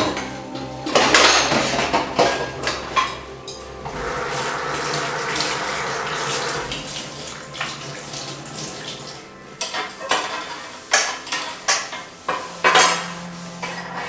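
Dishes being washed at a kitchen sink: plates, pots and cutlery clatter and clink, with a tap running for a few seconds in the middle. The clinks come thicker in the last few seconds.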